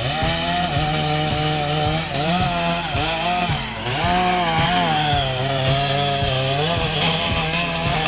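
Chainsaw engine running at high revs while cutting wood, its pitch repeatedly dipping under load and climbing back about once a second.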